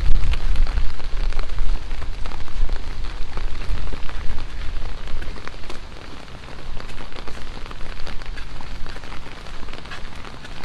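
Hurricane-force wind gusting and buffeting the microphone with a deep rumble, over the hiss and patter of driving rain. The gusts ease briefly about six seconds in, then pick up again.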